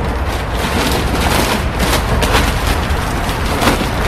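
Gift-wrapping paper being handled and crinkled close to the microphone: a dense, continuous crackling over a low rumble.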